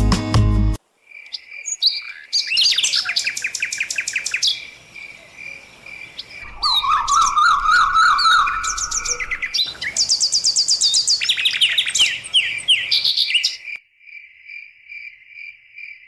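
Music cuts off about a second in. Birds then chirp and trill in several different calls over a steady high chirp repeated about three times a second.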